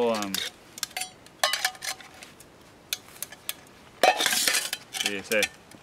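Stainless steel 1-litre Pathfinder bottle, its nesting cup and stand clinking and scraping as they are nested together: scattered sharp metal clinks, then a longer, louder scraping rattle about four seconds in as the bottle slides into the cup.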